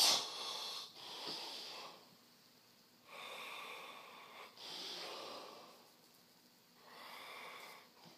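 A sleeping person snoring. It starts with one loud snort, then goes on with several noisy, wheezy breaths in and out, each about a second long.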